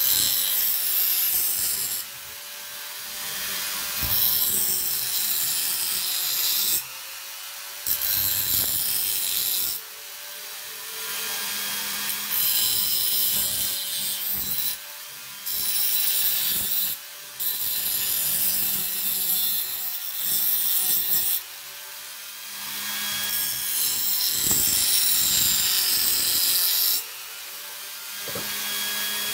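Small rotary tool with a grinding stone running with a steady motor hum while a steel knife blade is ground against the spinning stone, sharpening it. The grinding hiss comes in passes of a few seconds each, with short breaks between them as the blade is lifted off.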